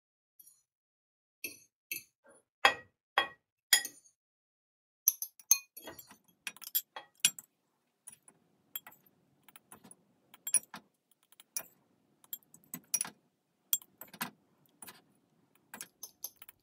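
A metal spoon scraping and clinking against a ceramic dish and a glass bowl as cooked rice is scooped from one into the other. The clicks come irregularly and are short and sharp, with a few louder knocks along the way.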